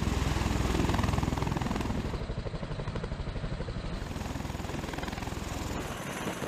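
V-22 Osprey tiltrotor lifting off in helicopter mode: its twin turboshaft engines and proprotors make a low drone with a fast, even blade beat. It is loudest in the first two seconds, then fades somewhat as the aircraft climbs away.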